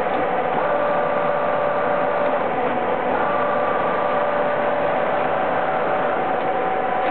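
Large Anyang 37" x 120" engine lathe running under power, a steady mechanical whir with whining gear tones that come and go, about half a second in and again around three seconds in.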